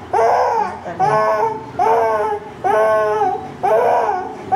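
A feverish young child crying in repeated wails, about one a second, each rising then falling in pitch.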